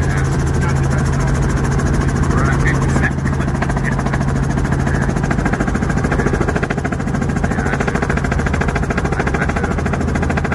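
Robinson R44 Raven helicopter in flight, heard from inside the cabin: the steady drone of its six-cylinder Lycoming piston engine and rotors, with a fast, even beat running through it.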